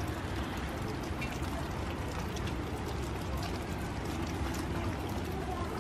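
Steady rain falling, with many small drops ticking throughout, over a low rumble.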